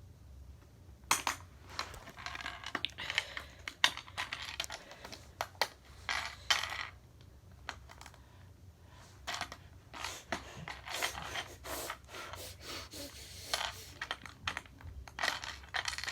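Hands breaking and pulling pieces off a small object: a long run of irregular sharp clicks, snaps and short scrapes, starting about a second in.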